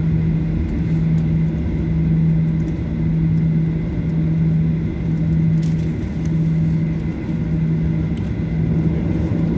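Cabin noise of a Boeing 737-800 rolling out on the runway after landing: a steady rumble, with a low hum that breaks off briefly about once a second.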